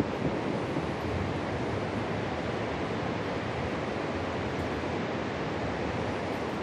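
The Dudh Koshi river's whitewater rushing far below: a steady, even rush of water noise.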